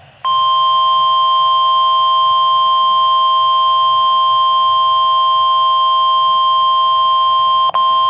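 NOAA Weather Radio warning alarm tone: a loud, steady single-pitched alert tone that starts a moment in, with a brief dropout near the end. It signals that a warning broadcast, here a tornado warning, is about to follow.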